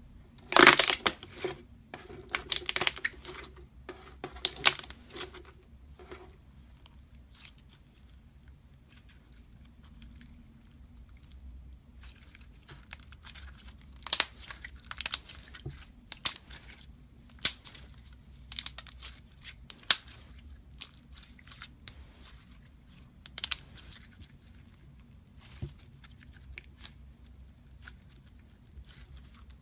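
Slime being pressed and squeezed by hand, giving off irregular sharp crackles and pops; a dense run of loud crackling in the first few seconds, then scattered single pops after a quieter stretch.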